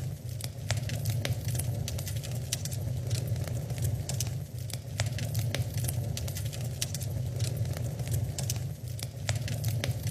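Wood fire in a fireplace crackling, with frequent irregular sharp pops over a steady low rumble of the burning logs.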